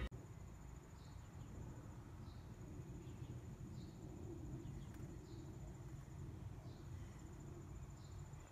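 Faint backyard ambience on a summer lawn: insects trilling in one steady high tone, with a short chirp repeating about once a second.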